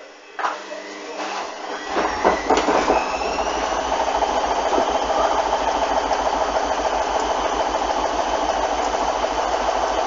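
Hoover front-loading washing machine spinning up with a very unbalanced load: a few knocks in the first few seconds as the drum gets going, then the motor whine climbs and settles into a steady loud run with an even low pulsing rumble.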